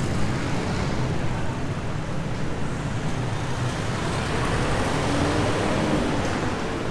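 Busy road traffic: a steady rumble of engines and tyres, with one engine rising and falling in pitch near the end.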